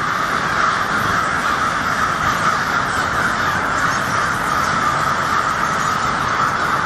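A large colony of bats screeching and chattering all at once: a dense, continuous din of calls.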